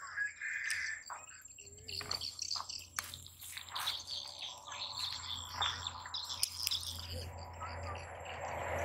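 Short, high chirping calls, one held briefly near the start, over scattered clicks and rustles, while a low engine hum swells toward the end.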